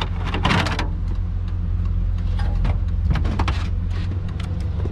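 Chevrolet Silverado pickup idling with a steady low hum, heard from inside the cab, with short clatters of loose plastic dash trim being handled about half a second in and again around three seconds in.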